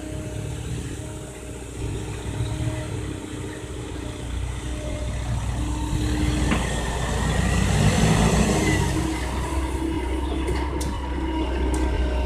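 Komatsu PC130 hydraulic excavator's diesel engine running steadily while it digs, growing louder for a few seconds around the middle as it works under load.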